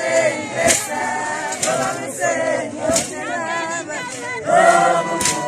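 A crowd of men and women singing a Zulu wedding song together, with a few sharp strikes breaking in at uneven intervals.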